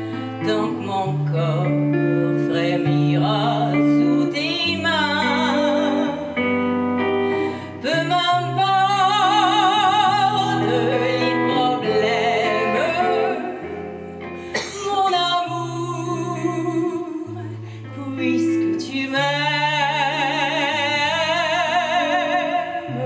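A woman singing with wide vibrato on long held notes, accompanied by guitar playing sustained low notes beneath the melody.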